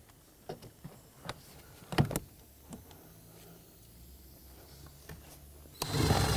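Cordless driver running a mounting screw into a heater blower motor's plastic housing: a low motor whir that changes speed in steps, a few light clicks, and a louder burst of noise near the end.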